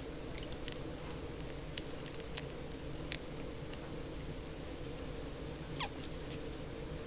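A baby porcupine eating banana: a scatter of tiny clicks in the first three seconds, then one short squeak, falling in pitch, about six seconds in. The squeak is one of its hiccups.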